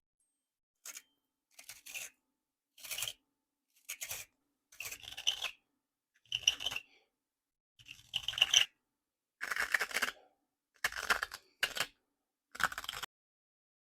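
A reamer scraping built-up carbon cake out of a tobacco pipe's bowl, in about ten short scraping strokes roughly a second apart.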